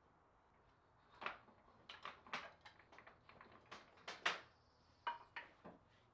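A run of irregular light clacks and knocks from small hard objects, about a dozen over four seconds, loudest a little after four seconds in.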